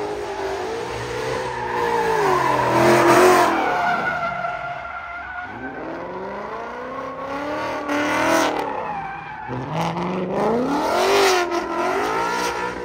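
Ford Mustang doing donuts: the engine revs up and down again and again while the spinning rear tyres skid on the asphalt. It is loudest about three seconds in, again around eight seconds and around eleven seconds.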